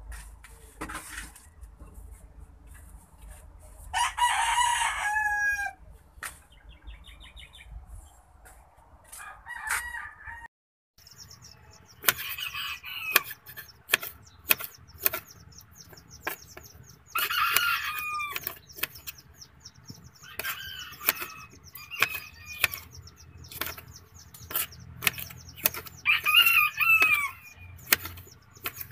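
A rooster crowing three times, about four seconds in, midway and near the end. In the second half a knife taps a cutting board again and again as tomatoes are sliced.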